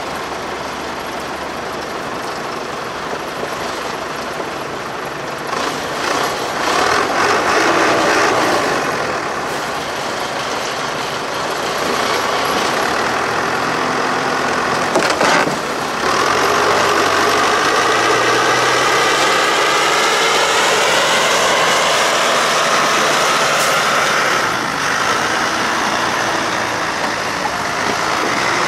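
A TAF articulated forestry skidder's 160 hp MAN diesel engine working while it drags a hitched load of logs. It gets louder about a third of the way in, then about halfway through it revs up sharply and stays loud, its pitch rising and falling under load.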